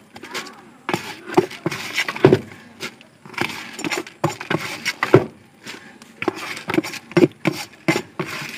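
A hand scooping inside a plastic bucket, with irregular sharp knocks and clicks against the bucket's sides over a dry rustling.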